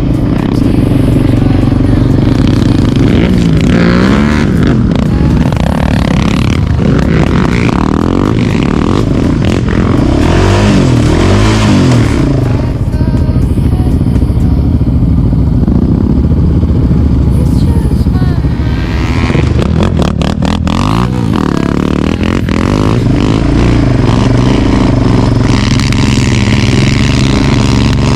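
Quad bike engine running under load, its pitch rising and falling again and again as the throttle is opened and closed.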